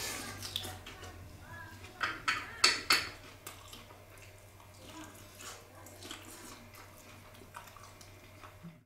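Cutlery clinking and scraping on a plate of salad as food is picked up and eaten, with a few sharper clicks about two to three seconds in.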